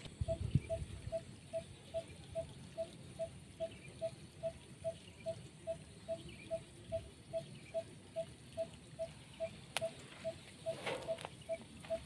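An animal calling: one short note on the same pitch, repeated very evenly about two and a half times a second. A brief low rumble comes about half a second in, and a short higher sweeping sound near the end.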